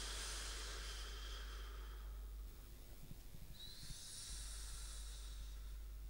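Slow sleeping breaths: two long, breathy hisses. The first fades about two seconds in, and the next starts about three and a half seconds in and lasts about a second and a half. A faint, steady low hum runs underneath.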